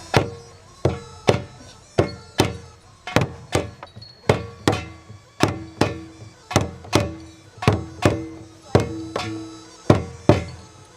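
Korean folk-song accompaniment: percussion struck in a steady rhythm, often in pairs, about two to three strokes a second, over a faint held tone.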